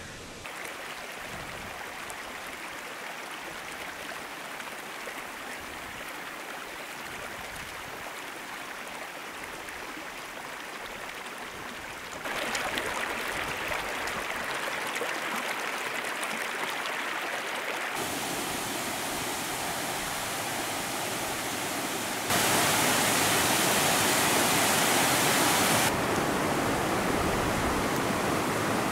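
Rushing water of a mountain creek and waterfall, a steady hiss with no other sound. It gets louder in abrupt steps partway through and is loudest a little past two-thirds of the way in.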